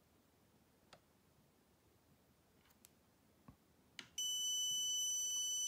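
Fulcrum Nemo IVMS tracking unit's buzzer giving one steady, high-pitched electronic beep that starts about four seconds in, after a few faint clicks as the magnet is held on the unit's magnetic switch. It is the activation beep that shows the unit has switched on.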